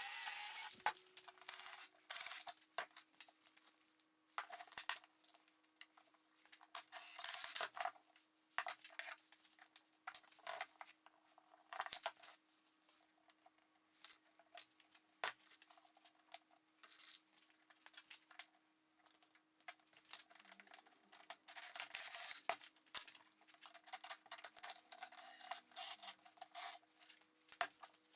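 Small hand tools being handled and worked: irregular clicks and taps and short scraping strokes, with a faint steady hum underneath.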